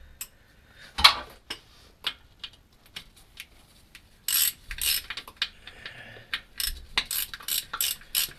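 Socket ratchet clicking under hand strokes, mixed with clinks and knocks of metal tools. One sharp knock about a second in, then a quickening run of clicks, about four a second near the end.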